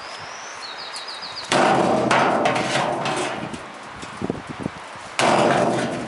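Sledgehammer blows on a dishwasher tub: two heavy strikes, about 1.5 s and 5 s in, each followed by a second or two of clattering and ringing as the tub shakes, with a few light knocks between them.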